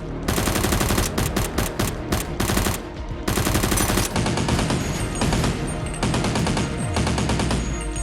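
Rapid bursts of automatic gunfire in a Nerf gunfight, over background music.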